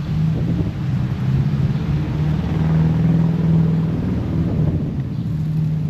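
Car engine running while driving, heard from inside the cabin, a steady low hum whose pitch rises a little near the middle and then eases back.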